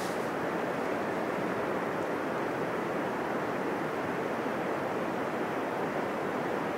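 Rough surf from a post-typhoon swell breaking continuously, a steady rushing wash with no single wave standing out.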